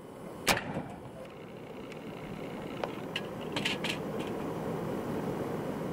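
A single sharp report from a .451 Parker Hale Whitworth black-powder muzzleloading rifle firing, about half a second in, with a short ring after it. Then steady outdoor background noise with a few faint clicks.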